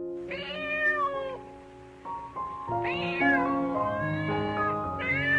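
A domestic cat meowing three times, each meow about a second long and rising then falling in pitch, over background music.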